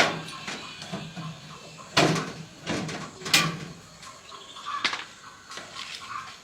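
A few sharp knocks and clatters, like hard objects being set down or struck. The loudest comes at the very start, with others about two, three and a half and five seconds in.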